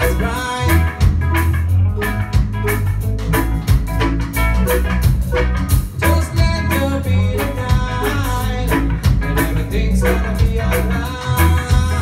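A reggae band playing live: electric guitars, bass guitar, drum kit and keyboard with a steady beat, and vocals over the top.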